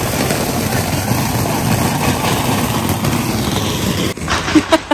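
Ground fountain firework (anar) spraying sparks with a steady, loud hiss. It cuts off abruptly about four seconds in, followed by a few short, sharp sounds near the end.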